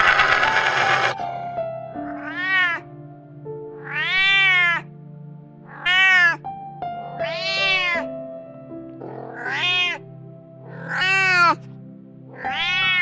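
A cat meowing over and over, seven meows each rising and falling in pitch, about one every second and a half to two seconds. A loud rough noise fills the first second before the meows begin.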